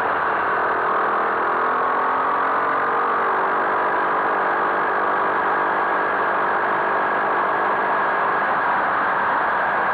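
Skyteam Monkey 125's small single-cylinder four-stroke engine running as the motorcycle rides along, under steady heavy wind rush on the microphone. The engine note fades out about two-thirds of the way through, leaving mostly wind.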